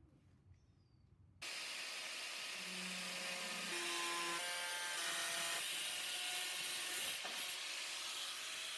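Angle grinder with a cut-off wheel cutting through a sheet-steel enclosure panel, starting suddenly about a second and a half in and running steadily, with tones in the motor sound that shift in pitch.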